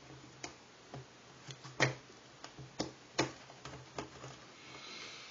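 Scissors snipping through the seal sticker on a cardboard phone box: a run of sharp, irregular clicks, the loudest about two and three seconds in.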